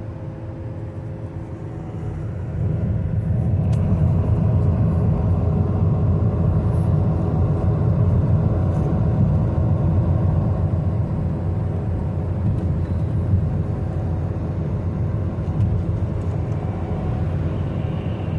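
A moving car's low road and engine rumble, getting louder about two and a half seconds in and then holding steady.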